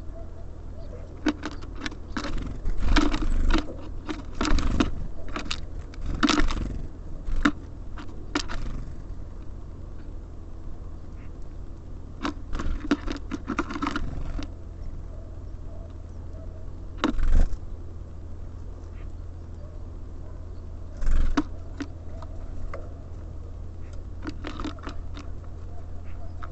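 Small birds pecking and scrabbling at a bird feeder: irregular flurries of sharp taps and scratches, with a few single louder knocks later on, over a steady low hum.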